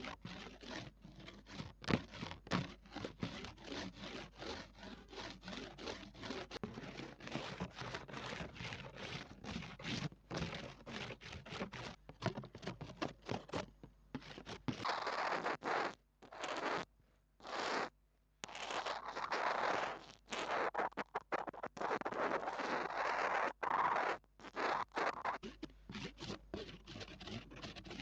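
Close-up ASMR scratching and tapping on a small microphone: quick, dense fingertip scratches for the first half, then longer rubbing swishes broken by short pauses from about halfway, and quick scratches again near the end.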